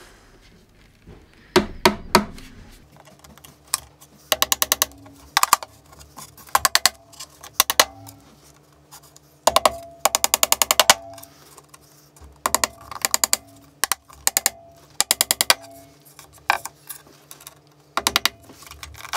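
Hammer tapping nails into a 12mm MDF panel: bursts of quick, sharp strikes, several in fast succession per nail, with short pauses between bursts.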